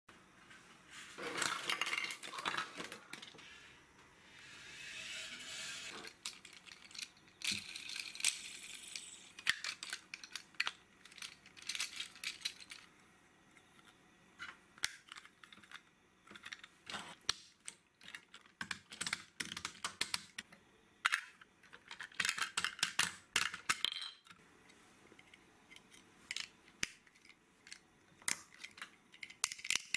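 Plastic LEGO Duplo pieces handled and clicked together by hand: a long run of sharp clicks and taps as the loader's arm and bucket are fitted, with a few stretches of rustling in the first ten seconds.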